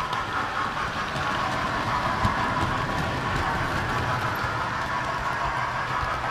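Model train running on its track, heard from a camera riding on the train: a steady whirring rumble of wheels and motor with faint scattered clicks from the rails.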